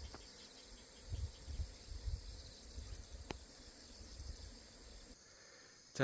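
Insects chirping steadily in the background, a thin high shrill that stops about five seconds in. There are faint low rumbles and a single sharp click a little after three seconds.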